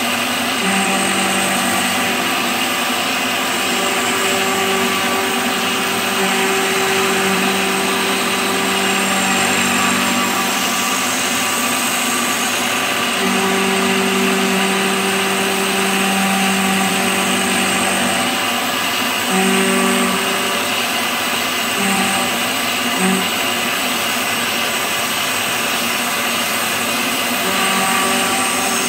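CNC milling machine spindle running with an end mill cutting a pocket in cast iron, a steady machining hum. A low tone comes and goes in stretches of a few seconds as the cut goes on.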